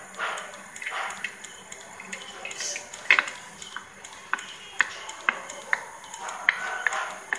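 Remote control buttons pressed again and again to step through a TV channel list: sharp clicks, about two a second from about three seconds in, over faint background noise.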